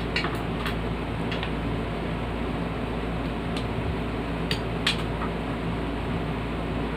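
Scattered light clicks and taps of small parts being handled, about half a dozen, over a steady background hum.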